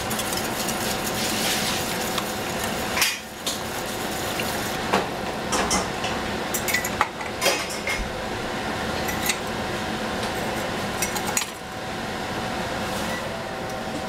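Wire whisk stirring in a metal saucepan, with scattered light metal-on-metal clinks of cookware and utensils.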